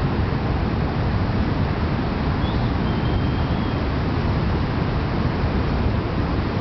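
Steady wind rushing and buffeting over the microphone, heaviest in the low end.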